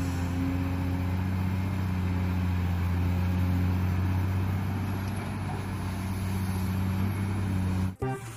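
Diesel engine of a large Caterpillar hydraulic excavator running steadily while it digs, a constant low hum. It cuts off suddenly near the end.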